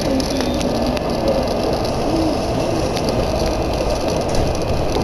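Steady rumble heard inside a Z20900 RER commuter train as it pulls into an underground station and slows to a stop.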